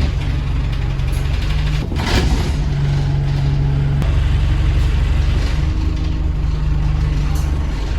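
Diesel bus engine running steadily, its drone stepping in pitch a few times, with a brief hiss about two seconds in.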